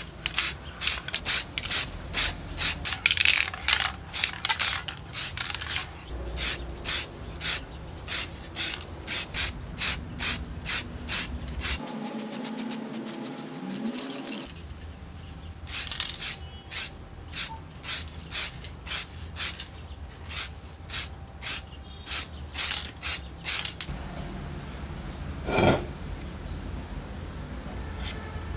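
Aerosol spray paint can sprayed in short hissing bursts, two to three a second, with a break of a couple of seconds near the middle. Near the end the bursts stop and a single sharp knock is heard.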